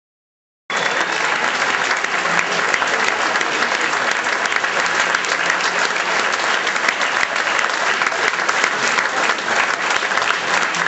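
Theatre audience applauding steadily during a curtain call, cutting in abruptly just under a second in after a moment of silence.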